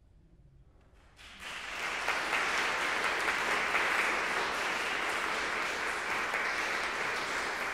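Audience applause breaking out about a second in after a hush, then going on steadily as a dense patter of many hands clapping.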